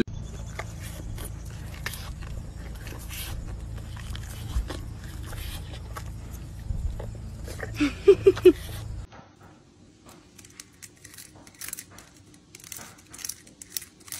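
A cow licking and mouthing a person's hand, over a steady low rumble, with three short, loud pitched sounds a little after eight seconds. Then, from about nine seconds, a cat gnaws on the rim of a wicker basket: a quieter string of small sharp crunches and crackles.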